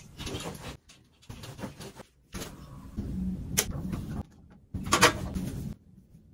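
Handling sounds at an ironing board: a steam iron moved over fabric and lifted, fabric rustling, and a few sharp knocks, the loudest about five seconds in as the iron is set down on the board.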